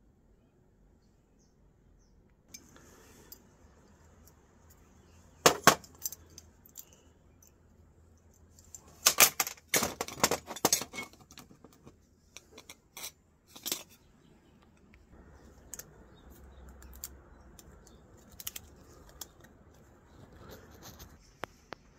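Small brass and steel screws, nuts and fittings from an old fuse box clinking as they are handled and dropped onto a pile on concrete. There are two sharp clinks about five seconds in, a quick cluster a few seconds later, then scattered single clinks.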